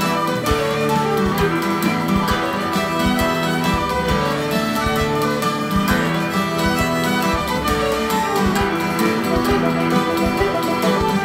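Fiddle playing a jig: a continuous run of quick bowed notes in a steady, even rhythm.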